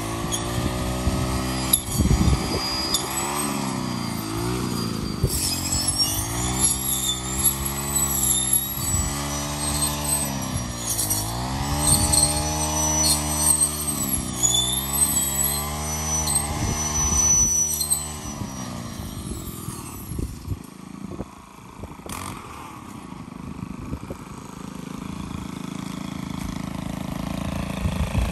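Gas string trimmer engine running at high revs, its pitch dipping and recovering again and again as it loads up cutting through tall, thick weeds. After about 18 seconds it drops back to a lower, quieter run.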